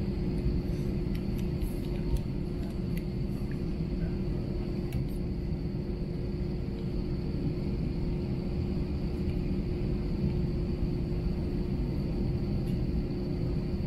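Airbus A321 cabin noise on the ground: a steady low rumble from the running jet engines, with a constant hum and a faint, even high whine over it.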